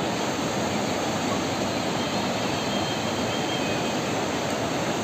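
River water rushing steadily, an even noise with no let-up.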